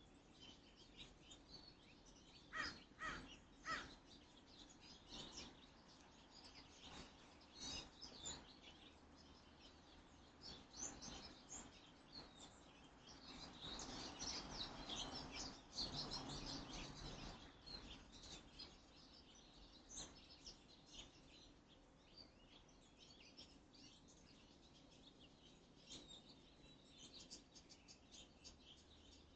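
Crows cawing, three harsh caws close together a few seconds in, over faint high chirping of small birds. A few seconds of rushing noise come in the middle.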